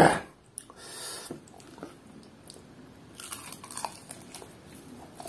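Biting into and chewing a piece of deep-fried chicken breast, the crunchy coating crackling in a run of quick crunches about three to four seconds in. A brief loud mouth sound comes right at the start.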